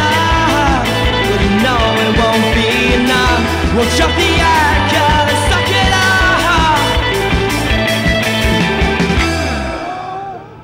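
A band song with singing over a steady beat, fading out near the end.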